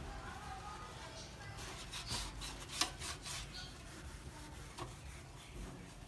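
A run of short rubbing and scraping strokes with a sharp click near the middle.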